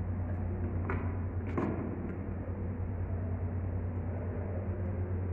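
A steady low machine hum, with two short sharp clicks about a second and a second and a half in.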